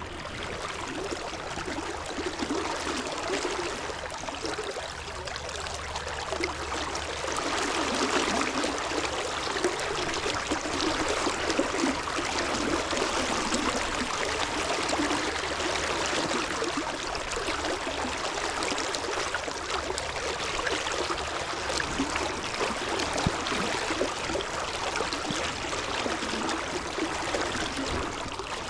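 Steady rush of flowing river water, with a fine splashing crackle, getting a little louder about a quarter of the way in.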